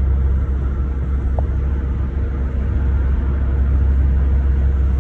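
Steady low rumble of a car on the move, engine and road noise with no change in speed.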